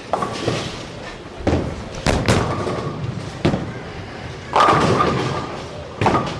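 Bowling alley lane noise: a series of sharp crashes and thuds from balls and pins, each ringing briefly, the loudest and longest about four and a half seconds in.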